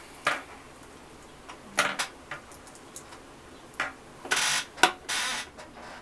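Small tools and parts being handled at a soldering bench: scattered light clicks and taps, with two short scraping noises about two thirds of the way through.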